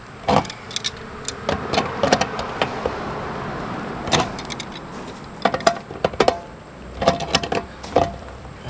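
Wrench clicking and clanking against the new pressure-relief valve as it is turned tight into an RV water heater tank: a string of sharp metal clicks. A steady rushing noise swells and fades in the first half.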